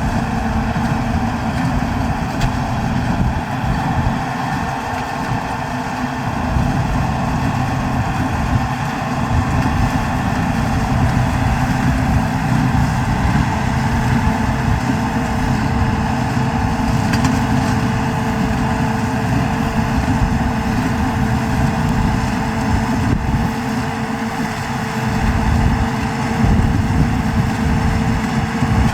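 New Holland TD110D tractor's diesel engine running steadily, with a constant hum over an uneven low rumble.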